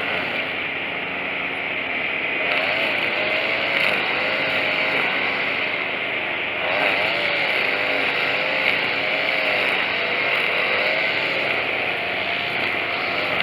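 Tanaka TCG22 22 cc two-stroke string trimmer running at high revs, its engine pitch swinging up and down about once a second as it works. It runs smoothly on a newly replaced carburetor.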